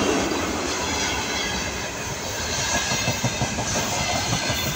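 Container flat wagons of a freight train rolling past on the track: a steady rumble of wheels on the rails with many short, irregular knocks.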